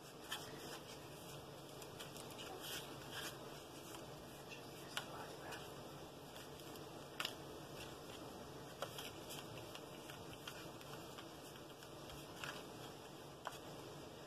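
Faint, scattered soft taps and light scrapes of paint being brushed and dabbed onto paper-plate pieces, over a steady low room hiss.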